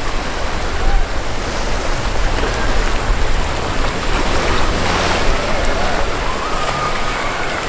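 Rough, churning water splashing and rushing around a boat hull, with wind rumbling on the microphone.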